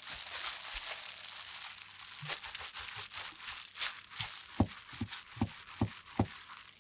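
Dry rustling and crinkling, with a run of sharp ticks in the second half. It cuts off abruptly near the end.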